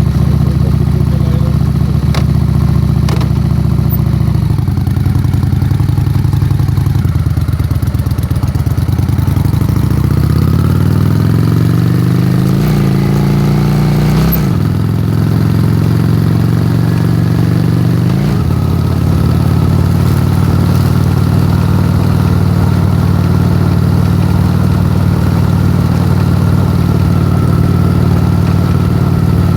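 Honda Shadow V-twin motorcycle engine running under way, recorded from a handlebar mount: the engine pitch climbs twice and drops sharply at each gear change about halfway through, then holds steady at cruise. A thin steady whine sits above the engine once it settles.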